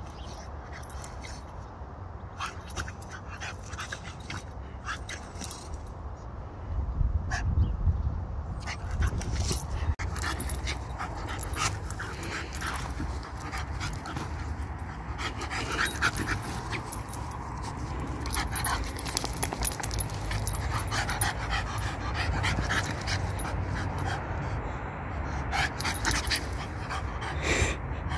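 French bulldog panting and making excited little vocal sounds as it rolls about on grass. Under it runs a low rumble that grows louder about a quarter of the way in, with many short scuffs and knocks.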